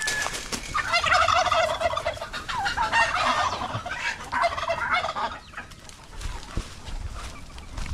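Domestic turkey gobbling: a rapid warbling call in a few runs over about four seconds, stopping a little past halfway.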